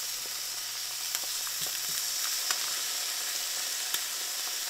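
Eggs and pieces of ham frying in a pan: a steady sizzle with scattered small pops and crackles.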